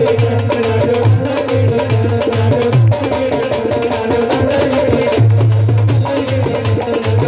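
Loud amplified live bhajan music with a fast, steady percussion beat and repeated deep drum pulses.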